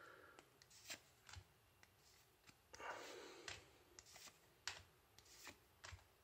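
Faint, irregular soft flicks and slides of Yu-Gi-Oh trading cards being moved one by one from the back to the front of a hand-held stack, with a longer sliding hiss about three seconds in.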